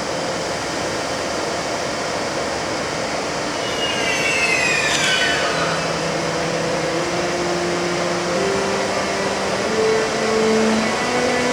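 ÖBB Taurus electric locomotive's traction converter singing as it pulls away: from about halfway in, its whine climbs in distinct stepped tones, like a rising scale, over steady running noise. Just before the scale begins, high whistling tones fall in pitch, with a sharp click.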